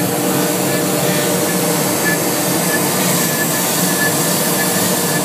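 Multicam 3025R CNC router with a 7.5 HP, 32,000 rpm spindle, carving HDU sign foam at 200 in/min, together with the rush of the dust-collection suction at its brush shoe. The noise is loud and steady, with a faint high tone coming and going.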